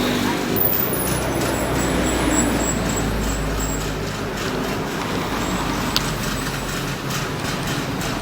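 Heavy diesel road-construction machinery running: a steady low engine rumble under a broad noisy wash, with one sharp click about six seconds in.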